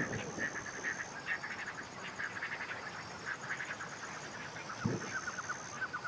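Wetland animal chorus: many short, rapid chirping calls, with a steady high whine over them and a brief low thud about five seconds in.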